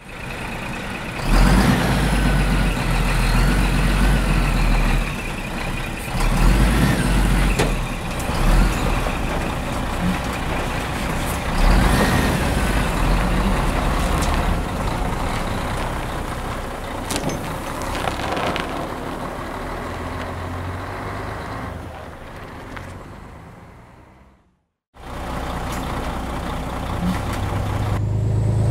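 Heavy truck and construction-machine engines running with a deep, steady sound, with occasional squeals and knocks. The sound fades out, drops to silence for about a second near the end, then starts again.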